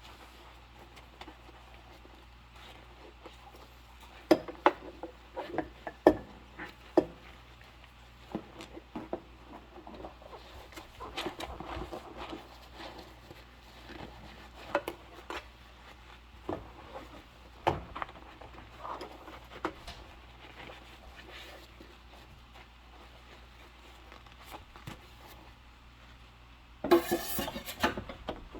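Hand dishwashing in rubber gloves: dishes and cutlery clink and knock together in scattered taps, loudest a few seconds in. Near the end comes a short burst of rushing, hissing noise.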